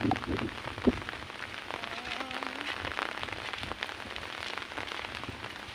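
Heavy rain falling, with a dense run of close, sharp raindrop hits and one louder knock about a second in.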